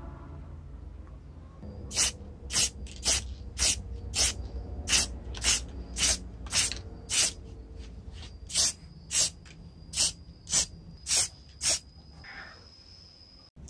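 Aerosol spray paint can hissing in short bursts, just under two a second, with a brief pause midway, as black paint is sprayed onto a metal pencil sharpener part.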